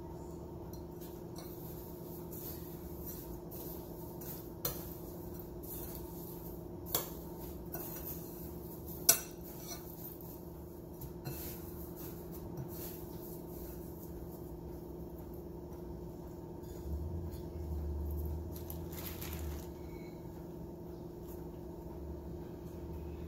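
Light clinks of utensils and hands against ceramic bowls while squid rings are dipped in beaten egg and rolled in panko crumbs: three sharp clinks in the first half, the last the loudest. A steady low hum runs underneath, and a dull low rumble comes a little past the middle.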